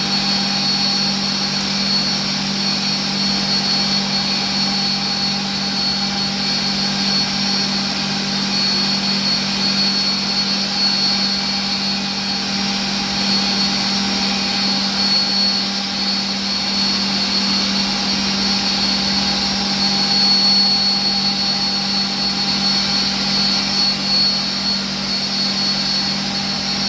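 IMA Novimat edge bander running steadily: a constant machine hum with a thin high whine over it.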